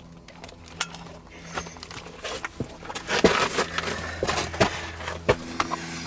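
Footsteps and scrapes on rock and loose ground, a string of irregular knocks loudest about three to five seconds in, over a faint low steady hum.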